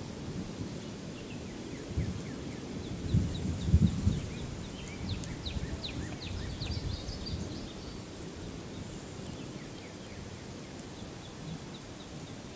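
Birds chirping in a quick series of short notes, busiest from about four to seven seconds in, over a low rumble with a few dull thumps in the first few seconds.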